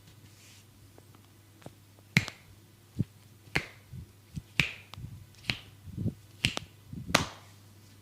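About ten sharp snapping cracks made by a barber's hands during a massage, irregularly spaced at roughly two a second, starting about two seconds in, with the loudest near the start and the end.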